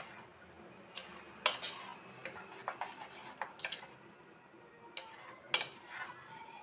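A utensil stirring thick moong dal batter in a bowl, with irregular clinks and knocks against the bowl's side.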